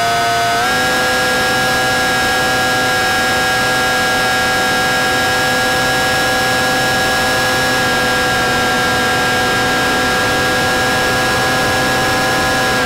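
Onboard sound of an FPV forward-swept-wing model plane's motor and propeller: a steady high-pitched drone that steps up in pitch about half a second in as the throttle opens, then holds, over rushing wind noise.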